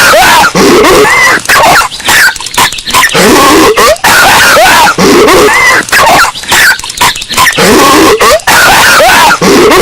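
Patrick Star's cartoon voice coughing and hacking, boosted until it is heavily distorted and clipping. The same short clip loops about every three and a half seconds.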